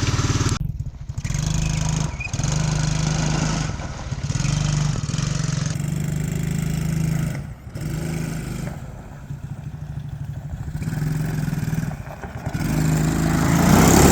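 Tao Tao 110cc ATV's single-cylinder four-stroke engine, fitted with a new carburetor, running as the quad is ridden, revving up and easing off several times with brief drops between, loudest near the end.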